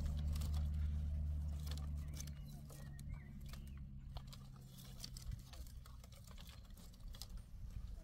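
Dry twigs and sticks clicking and crackling as they are handled and laid in a stone fire ring, in a run of small irregular snaps. A low steady rumble underneath fades out after about two seconds.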